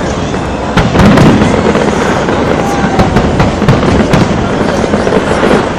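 Fireworks bursting in rapid succession, a dense run of loud bangs and crackles with a heavy cluster about a second in.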